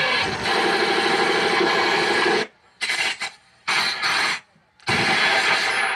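Loud, rasping, distorted sound effect from the dance track playing over a PA system, with no clear tune. It stops dead to silence several times about halfway through, then carries on.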